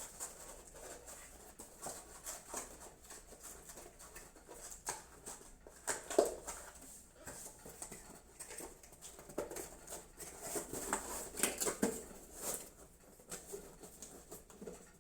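Irregular light clicks, scrapes and rustling of packaging being cut and pulled open with a screwdriver used as a knife. The handling is a little louder about six seconds in and again in a cluster near the end.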